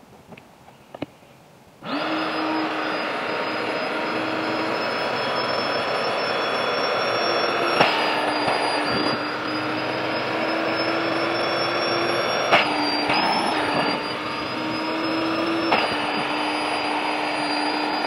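Electric air pump inflating an air mattress, refilling it after it lost air overnight: a steady motor hum and rush of air that starts about two seconds in, with its pitch jumping briefly three times.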